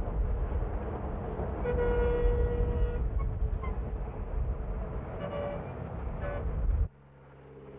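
Outdoor work noise with a heavy low rumble. A vehicle horn sounds once, a steady toot of about a second. After a sudden cut near the end, an engine runs, slowly getting louder.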